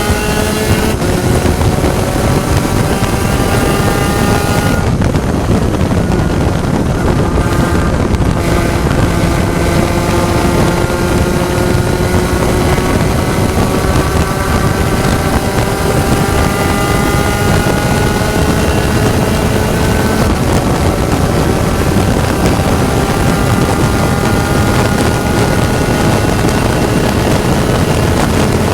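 Spec Racer Ford race car's engine under hard acceleration, its note climbing steadily and dropping back at gear changes about 5 and 8 seconds in and again about 20 seconds in, with heavy wind noise on the microphone.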